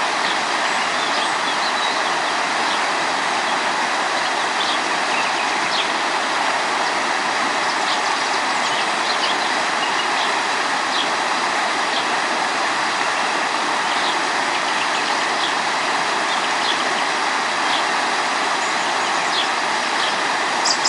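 Steady rushing of river water, with faint short bird chirps scattered over it and a couple of louder chirps near the end.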